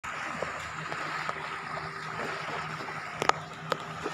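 Small waves washing on a sandy shore, with a steady hum underneath. Two sharp clicks a little after three seconds in, about half a second apart.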